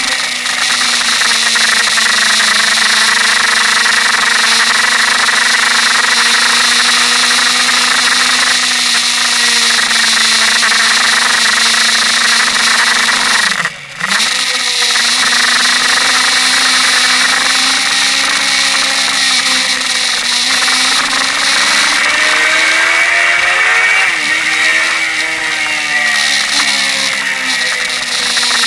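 Suzuki GSX-R inline-four engine pulling at a steady pitch, with heavy wind noise over the bike-mounted microphone. About halfway through, the engine note briefly cuts out and dips before picking up again. Near the end, the revs climb and then drop sharply.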